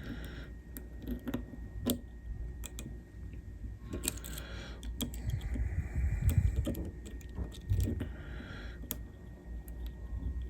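Lock pick and tension wrench working the pins of an 11-pin ABA dimple cam lock: scattered light metallic clicks and scraping, with louder handling rattle around the middle.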